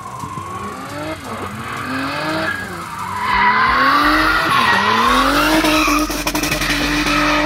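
Turbocharged BMW E36 with its 2.5-litre M50B25 straight-six revving up and down repeatedly as it drifts, tyres squealing; it grows louder as the car comes closer, and from about five seconds in the engine holds a steady high pitch.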